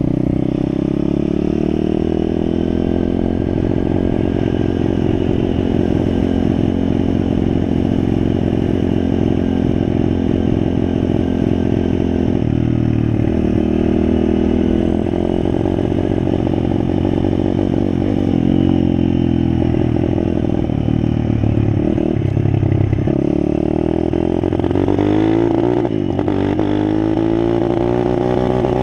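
Pit bike engine running under way, revving up and down as it is ridden, the pitch climbing and dropping several times with the gear changes.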